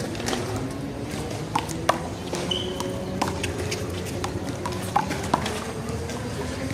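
Handball rally: the small rubber ball smacked by hand and rebounding off the wall and pavement, giving several sharp, irregularly spaced smacks, loudest about two seconds in and again around five seconds in.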